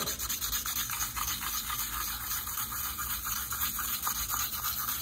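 220-grit sandpaper rubbed by hand inside a chainsaw cylinder bore in rapid, even back-and-forth strokes, scratching. It is scrubbing the aluminium transfer left by a scored piston off the cylinder wall.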